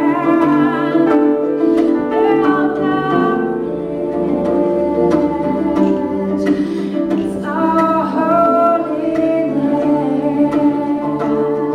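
A woman singing to her own accompaniment on a small plucked stringed instrument, the strings picked steadily under the sustained vocal line.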